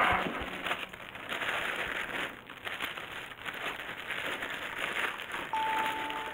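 Clear plastic parts bags crinkling and rustling in gloved hands, an irregular crackle that comes and goes. A few steady musical tones come in near the end.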